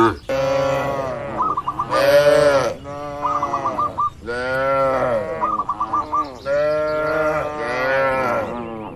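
Cattle mooing: about five calls in quick succession, each rising and then falling in pitch. Short identical wavering trills come between them, three times.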